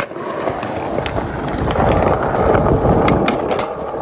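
Skateboard wheels rolling over concrete sidewalk, a steady rumble that grows louder partway through, with a few light clicks.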